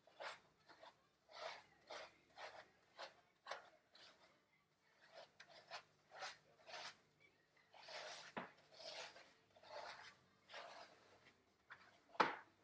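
Gloved hands scrubbing thick shampoo lather through a standard poodle's coat: soft rhythmic rubbing strokes, about two a second at first and broader, slower ones later. A sharp knock near the end.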